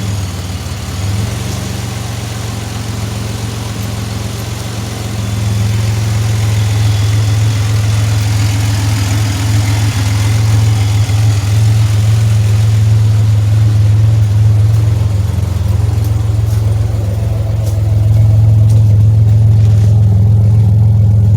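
Pontiac Grand Prix engine running at a steady idle, a low even hum that gets louder about five seconds in and again near eighteen seconds in.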